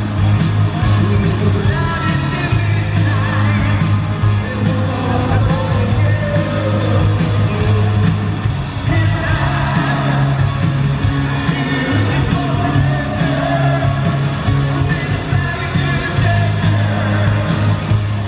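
Live rock band playing in an arena, heard from the audience: drums, electric guitar and keyboards, with a voice singing over them.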